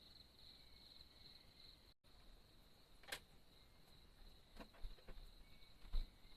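Insects chirring in a steady, pulsing high band, briefly cutting out about two seconds in. A few soft clicks and knocks come in the second half, the loudest near the end.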